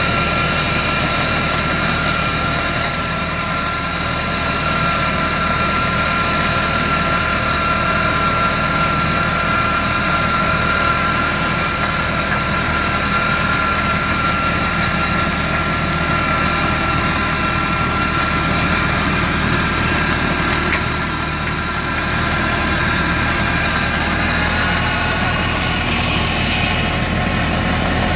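Oliwia currant combine harvester working along a row of bushes: a steady machine drone with a constant high whine running through it, and more low rumble near the end.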